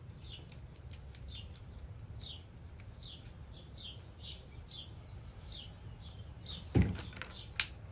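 A bird chirps repeatedly in the background, short high falling notes about twice a second. A single sharp knock sounds near the end, followed by a fainter click.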